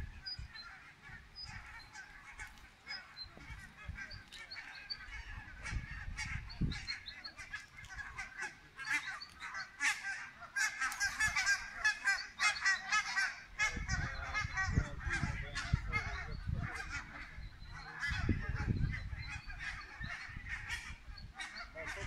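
A flock of birds calling continuously, many short honking calls overlapping, thickest around the middle. A low rumble comes and goes in the second half.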